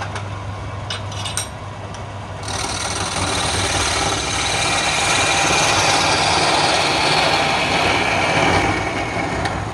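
Wood lathe running with a steady hum while a flat turning tool cuts across the end face of the spinning wood blank. The cutting is a loud, rough scraping noise that starts about two and a half seconds in and stops just before the end.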